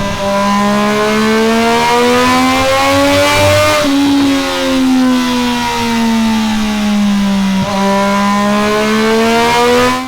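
Triumph Street Triple 765 RS inline three-cylinder engine running through a Delkevic X-Oval titanium end can, under load on a dyno. The exhaust note climbs slowly in pitch for about four seconds, then falls away steadily, with a short blip near eight seconds, and cuts off suddenly at the end.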